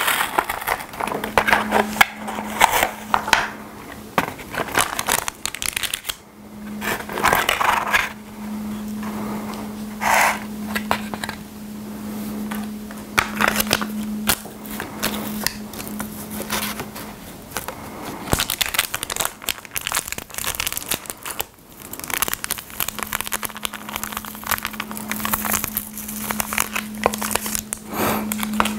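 Plastic and foil food packaging crinkling and tearing as it is handled and opened, with many small irregular crackles and rustles. A low steady hum comes and goes underneath.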